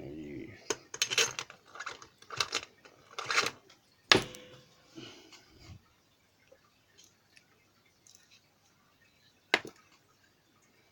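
Small metal parts of a Lockwood 334C45 padlock clicking and rattling as it is taken apart with a plug follower and its pins come out. There is a cluster of light clicks, a sharp metallic clack with a brief ring about four seconds in, and another sharp click near the end.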